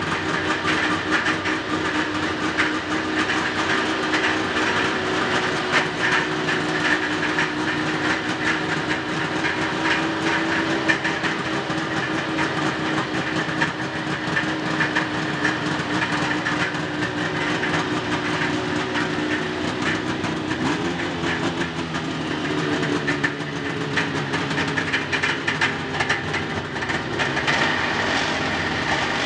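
Two-stroke engine of a vintage mid-1970s Arctic Cat snowmobile idling steadily after being fired up. Its note rises a little about twenty seconds in.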